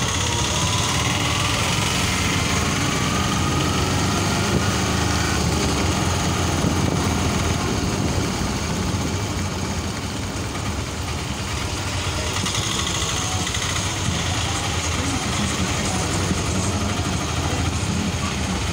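Tuk-tuk (auto-rickshaw) engine running steadily while under way, with road and wind noise. A whine rises in pitch over the first five seconds or so.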